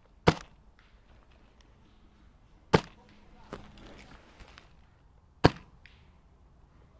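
Three single shots from an HPA-powered Wolverine MTW airsoft DMR, each a sharp crack, spaced about two and a half seconds apart, with a few faint clicks in between.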